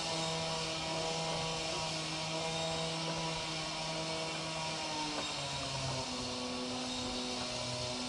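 A steady engine or motor drone with a low hum and hiss, its pitch dropping a little about five seconds in.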